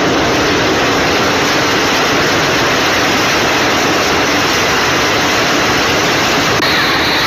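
Floodwater rushing in a fast, churning torrent: a loud, steady rushing noise with no let-up.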